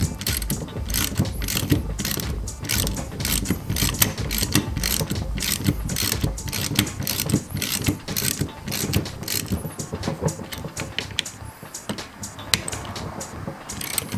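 Ratchet wrench with an 8 mm hex bit clicking in quick runs as fine-thread bolts are run down and snugged into a brake caliper bracket, the clicks thinning out briefly near the end.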